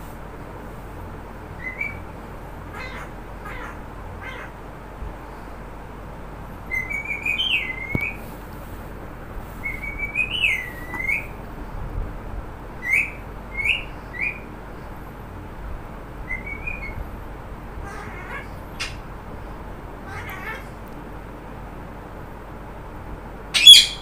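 Pet green parrot in its cage giving short squeaky, whistled calls in scattered bouts, some gliding up and down in pitch, then one loud, sharp squawk just before the end.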